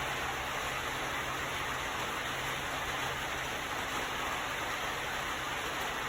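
Steady, even rushing hiss with no distinct knocks or clicks.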